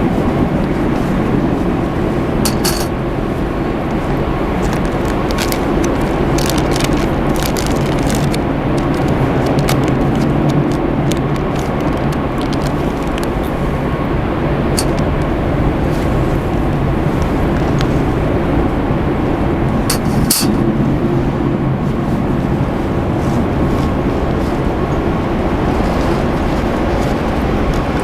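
A loud, steady rushing roar with a low hum under it, broken by a few sharp clicks, two of them stronger: one about three seconds in and one about twenty seconds in.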